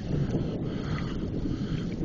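Wind buffeting the microphone: a steady, noisy rumble with no distinct events.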